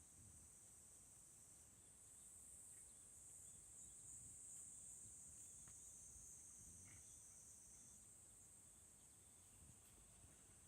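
Faint, steady high-pitched insect chorus that swells a little in the middle and eases off again.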